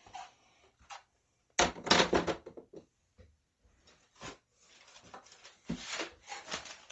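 Hard plastic CGC comic slabs knocking and clacking as they are handled and set down on a pile. There is a loud cluster of clatter about a second and a half in, and more light knocks near the end.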